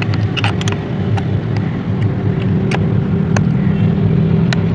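Sharp metal clicks and taps, about eight of them at irregular spacing, as a metal rod is worked against a chainsaw's centrifugal clutch to turn and seat it. Under them runs a loud, steady, low motor hum.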